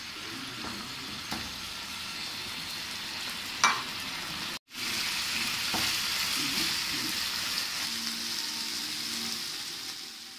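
Masala-coated chicken sizzling in a nonstick frying pan while a spatula stirs and scrapes it, as the juices the chicken released cook off with no oil added yet. A single sharp knock comes about a third of the way in, and the sizzle is louder in the second half.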